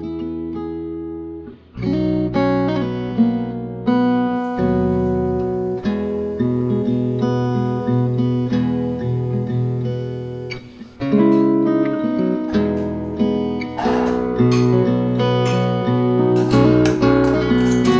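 Background music: acoustic guitar playing plucked and strummed notes, with two brief breaks in the music.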